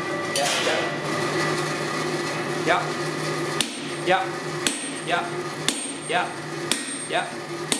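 Hand hammer striking hot steel on an anvil about once a second, each blow ringing metallically: the hand forging of a Damascus billet of 15N20 and EN42J steel. A steady low hum runs underneath.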